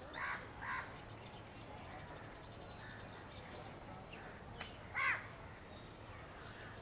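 Bird calls over outdoor ambience: two short calls right at the start and a louder one about five seconds in, with a faint steady high-pitched whine throughout.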